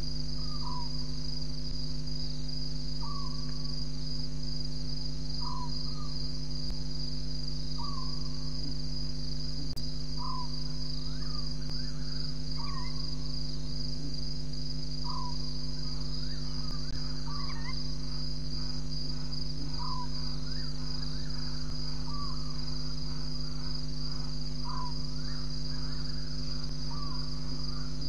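Steady night chorus of crickets, over a constant low hum, with a short call repeated about every two and a half seconds and more calls crowding in during the second half.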